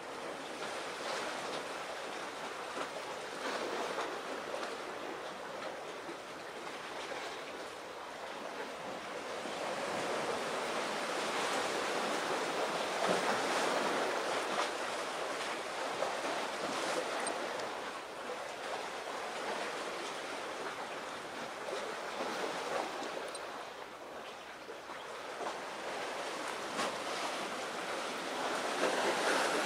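Sea waves washing against the shore, a steady rushing that swells and falls back slowly, louder about a third of the way in and again near the end.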